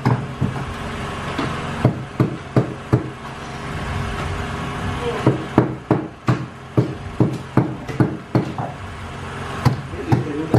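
Food being chopped on a wooden board: sharp knife strokes in uneven runs, about three a second, over a steady low hum.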